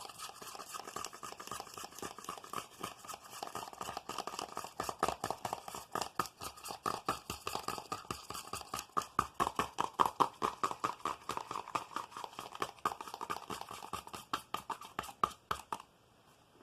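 Rapid ASMR finger tapping, a quick, even run of about five or six taps a second that stops about a second before the end.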